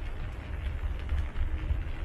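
Wind buffeting the camera's microphone: an uneven low rumble that rises and falls, with faint scuffs on top.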